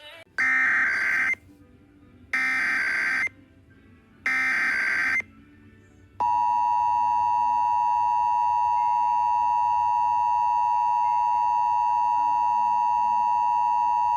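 Emergency Alert System header: three roughly one-second bursts of digital SAME data tones, then the steady two-tone EAS attention signal (853 and 960 Hz) held for about eight seconds, the signal that opens an emergency alert broadcast.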